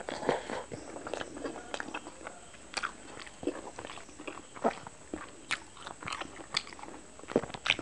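Close-miked chewing of a steamed chicken momo with red chutney: irregular sharp mouth clicks and smacks.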